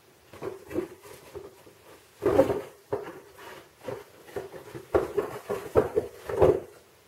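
A cat and a ferret scuffling under a cardboard box on a tile floor: irregular bumps, knocks and scrapes as the box is knocked about and shoved across the tiles, with loud clusters a couple of seconds in and again near the end.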